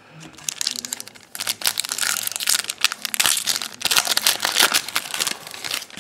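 Foil wrapper of a Bowman Platinum baseball card pack being torn open and crinkled by hand: a dense crackling that starts about half a second in and stops shortly before the end.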